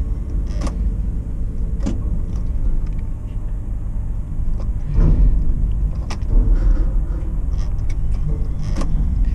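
Tower crane slewing, its drive giving a steady low hum, with a few sharp clicks and knocks along the way.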